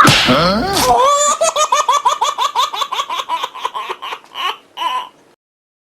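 High-pitched giggling laughter: a quick run of short "ha" sounds, about five a second, dying away shortly before the end.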